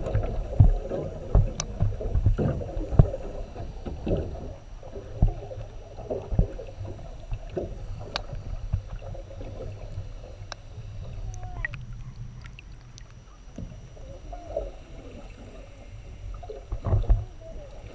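Muffled underwater sound picked up through a GoPro housing: a steady low rumble of moving water with scattered short knocks and clicks.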